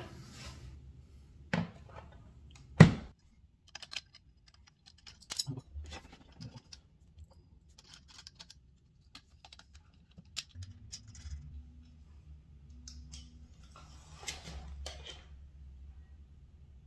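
Scattered light clicks and taps of small objects being handled, with two sharper knocks in the first three seconds.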